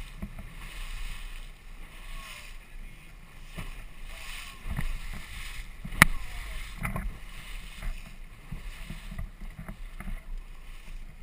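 Small outboard motor driving an inflatable boat under way, with water rushing and splashing from the hull and wake. A single sharp knock about six seconds in.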